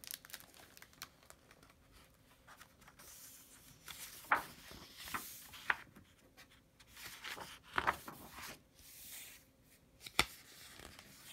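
Pages of a hardcover picture book being handled and turned: paper swishing and rustling in short strokes, with a few light taps and a sharp click about ten seconds in.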